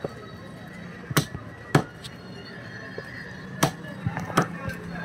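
Butcher's cleaver chopping a country chicken into pieces on a wooden chopping block: four sharp chops, two a little after a second in and two more near the end.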